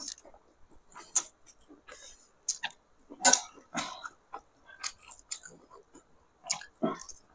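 A person eating egg masala curry and rice close to the microphone: chewing with a run of short, irregular mouth smacks.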